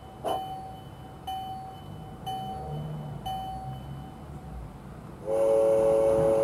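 Soundtraxx Tsunami sound decoder in a Bachmann Climax G-scale model locomotive ringing its bell about once a second, the strikes fading out. About five seconds in, a loud chime steam whistle sounds, held steady.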